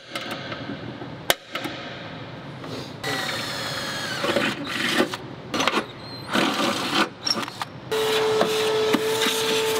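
A center punch strikes the Ford Ranger's sheet-metal inner fender with two sharp clicks. A cordless drill then spins up and runs in several short bursts as it bores the punched hole. About eight seconds in, a shop vacuum starts and runs with a steady hum at the freshly drilled hole.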